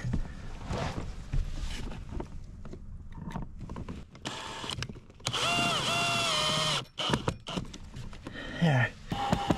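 A power drill runs in one steady whining burst of about a second and a half, about five seconds in. Scattered knocks and handling clicks come before and after it.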